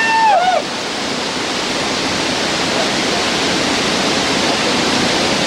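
Steady rush of whitewater river rapids far below. A short rising-and-falling pitched call at the very start cuts off about half a second in.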